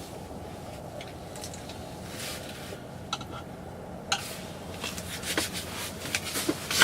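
Steady low rumble with scattered light clicks, turning into busier small clicks and rustling of handling in the last two seconds.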